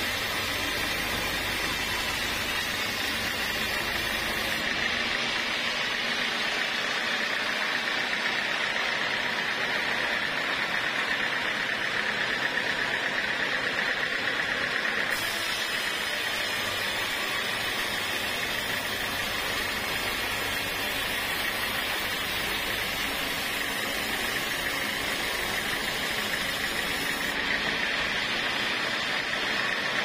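Band sawmill running with its blade cutting lengthwise through a large log: a steady, unbroken machine noise with a high whine over a hiss.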